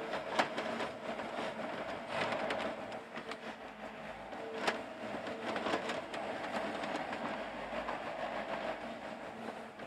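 Yanmar YB451 mini excavator's diesel engine running steadily as it digs and swings, with sharp metallic clanks from the machine, the loudest about half a second in and again about halfway through.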